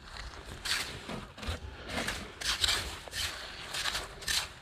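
A small metal hand rake scraping and digging into wet sandy mud, with a rubber-gloved hand turning the sand over to dig for Manila clams. The strokes come about one or two a second, each a short gritty scrape.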